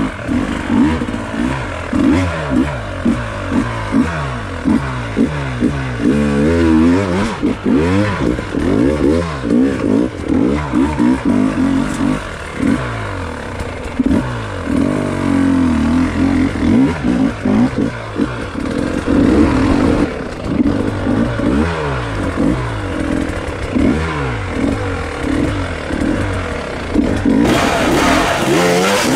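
Enduro dirt bike engine revving up and down in short bursts, its pitch rising and falling every second or so, as the bike is worked over rough ground.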